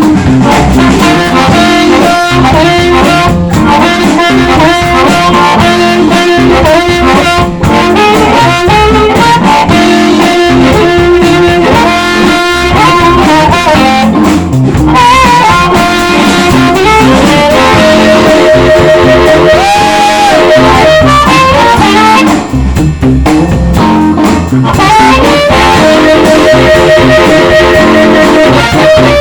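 Live blues band playing: harmonica and electric guitar over bass and drums, with a long wavering held note in the middle.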